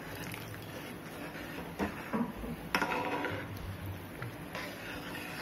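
A spatula stirring a thickening gravy in a metal kadhai, with a few knocks and scrapes against the pan between about two and three seconds in, over a steady low hum.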